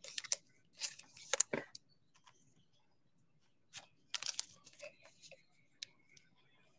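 Trading cards being handled: a few short rustles and scrapes of card stock, the strongest about a second and a half in and again about four seconds in.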